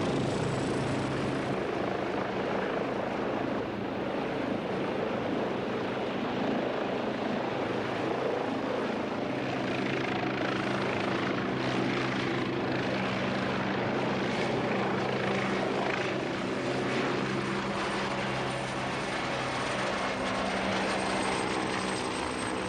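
Westland Wasp helicopter running, its turbine engine giving a steady high whine over a dense rotor and engine drone.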